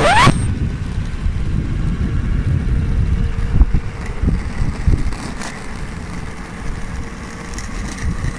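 DIY electric skateboard with a gear drive rolling over asphalt: a steady low rumble of the wheels on the road, with a faint steady whine from the gear drive.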